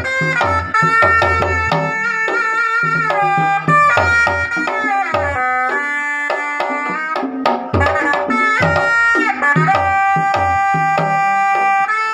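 Traditional Sundanese percussion music: hand drums beating a steady rhythm of deep strokes under a sustained wind-instrument melody that bends in pitch.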